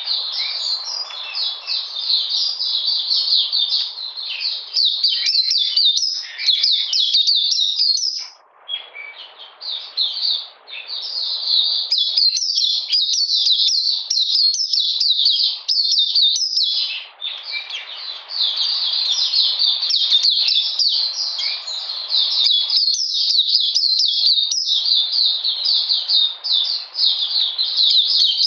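Caged white-eye singing a long, rapid, high-pitched twittering warble, with brief breaks about eight seconds in and again about seventeen seconds in.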